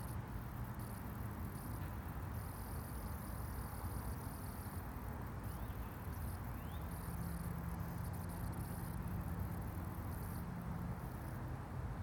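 Quiet outdoor ambience in an open field: a low steady rumble, with a faint hum coming in for a few seconds past the middle and two faint short chirps a little before it.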